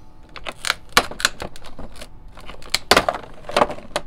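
Clear plastic packaging crackling and clicking as it is handled and pulled off a vinyl toy figure, in irregular bursts with a few sharper, louder crackles about a second in and near three seconds in.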